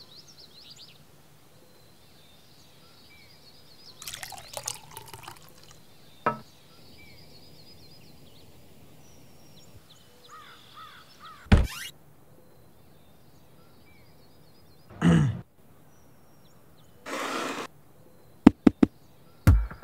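Quiet kitchen room tone with faint high chirps, broken by a few scattered knocks and thuds. Near the end comes a quick run of sharp knocks as cardboard boxes are set down on a countertop.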